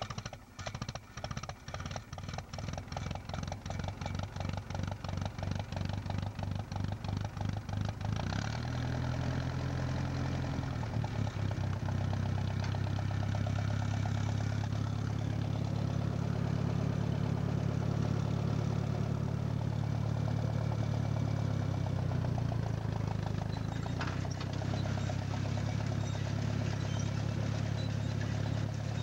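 Ferguson TE20 tractor's four-cylinder engine running with a slow, separate beat that speeds up and grows louder over the first eight seconds or so. It then settles into a steady, even note as the tractor pulls the seed drill.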